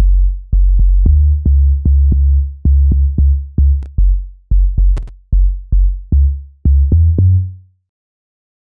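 Amapiano log drum sample playing alone: a syncopated run of about twenty short, deep bass notes, each struck sharply and dying away quickly, the pitch stepping up toward the end. It stops short near the end.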